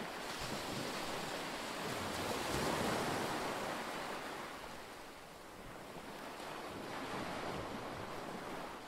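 Small waves washing up onto a sandy beach: a steady hiss of surf that swells and ebbs twice.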